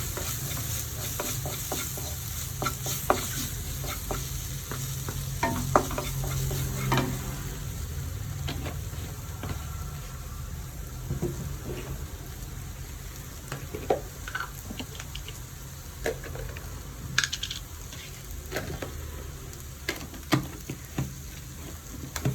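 Spiced onion-tomato masala sizzling in a pan while it is stirred, with scattered short scrapes and taps against the pan. The chilli, coriander and turmeric powders are being roasted until the masala turns brown.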